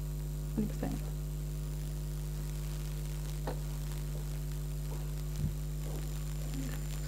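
Steady electrical mains hum in the sound system, with a few faint knocks scattered through it.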